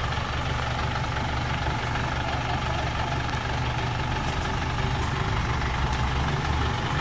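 Loaded timber truck's diesel engine idling steadily.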